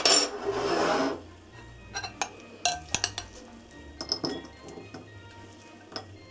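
Metal spoon scraping and clinking against a glass mixing bowl as sticky rice is spooned out into a ceramic bowl: a loud scrape in the first second, then several sharp clinks. Soft background music underneath.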